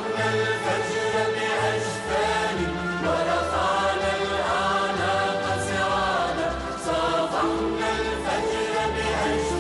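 Music: a patriotic song, a choir singing over instrumental backing.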